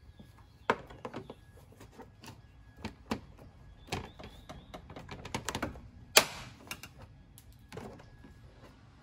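Plastic push-in retaining clips on a Jeep Wrangler JK grille being pried out with an interior panel tool: a series of sharp clicks and snaps, the loudest about six seconds in with a short rasp after it. The brittle clips are breaking rather than popping out whole.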